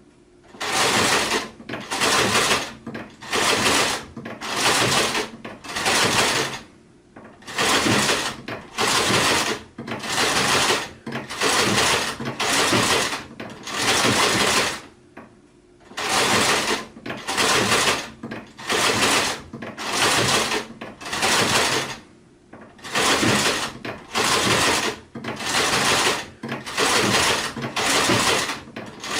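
Sewing machine running in short bursts about one a second, stopping briefly between each. The bursts come in runs of six or seven, with a slightly longer pause between runs.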